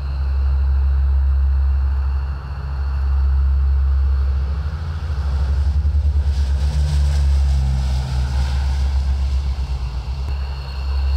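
Military aircraft engines running at takeoff power: a loud, heavy low rumble with steady high-pitched whine tones, swelling in noise about six seconds in.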